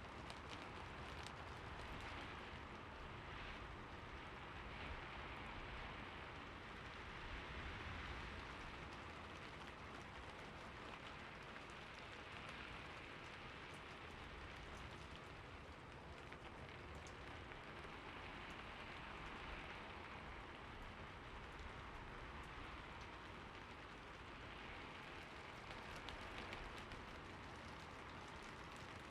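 Steady rain falling: an even hiss with a fine patter of individual drops, swelling and easing slightly every few seconds.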